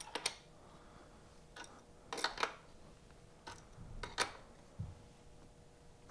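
Adjustable wrench clinking on the axle nut of a bicycle generator wheel as it is fitted and turned to tighten the nut: a series of short, sharp metal clicks, with a small cluster about two seconds in.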